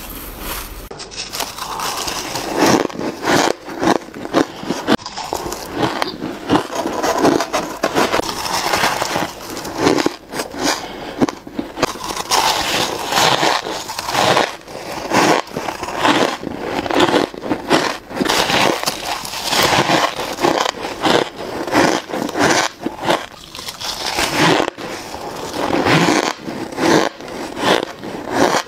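Soft white ice and freezer frost being bitten and chewed, a dense, irregular run of crunches, bite after bite.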